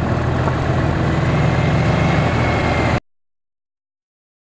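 A vehicle engine running steadily with driving and wind noise, its low hum stepping up slightly about a second in. The sound cuts off suddenly about three seconds in.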